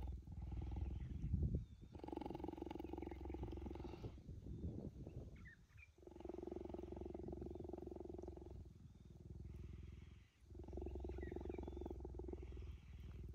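Cheetah purring while being stroked: a low, rough, continuous purr in long stretches of about two seconds with short gaps between.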